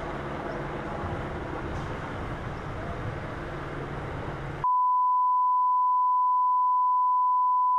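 A steady 1 kHz reference tone (test-tone beep) that comes with colour bars, cutting in abruptly about four and a half seconds in and holding one pitch. Before it there is a steady outdoor background hiss with a low hum.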